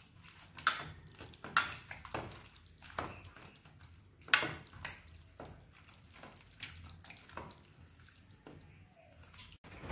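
A hand squeezing and mixing soft boiled bottle gourd with spice paste and mustard oil in a steel bowl: irregular wet squelches and clicks.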